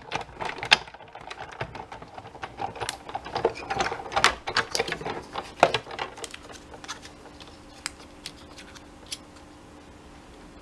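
Small clicks, taps and rustles of card, paper and craft tools being handled on a desk, busiest in the first six seconds, then only a few scattered clicks over a faint steady hum.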